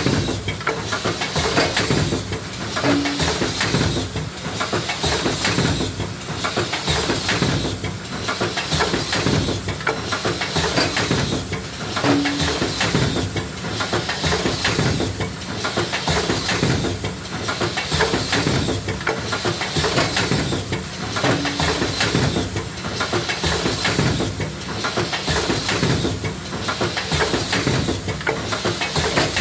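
Lunch box forming machine running in production, cycling at about one stroke a second, with a short low tone about every nine seconds.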